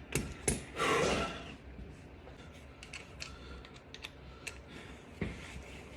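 Hand tools clicking and tapping on the starter's mounting bolts as they are threaded in, with a short, louder rasp about a second in.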